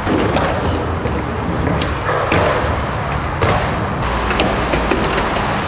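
Skateboards in a concrete skatepark: wheels rolling with a steady rumble, broken by several sharp clacks of boards hitting the concrete.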